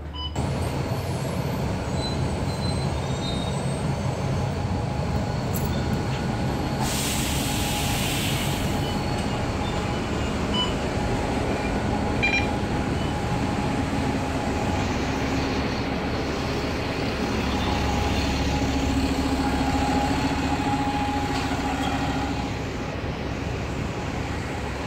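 City bus engine running with road and cabin noise. About seven seconds in there is a hiss lasting about two seconds.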